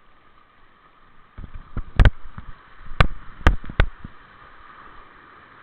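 A handful of sharp knocks and clicks: a few dull thumps, a loud sharp knock about two seconds in, then three more in quick succession about a second later, over a faint steady hiss.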